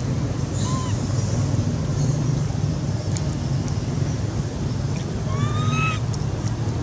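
Steady low background rumble, with one short rising squeaky call about five seconds in and a fainter chirp about a second in.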